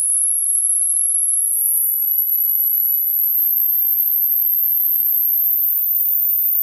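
Hearing-test tone from a speaker: a single very high, pure tone that climbs in small steps, held steady between steps.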